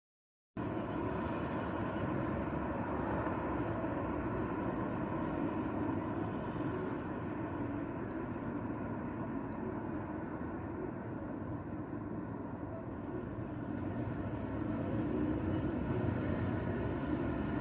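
Steady low rumble of outdoor city ambience with distant traffic, cutting in abruptly about half a second in and swelling slightly near the end.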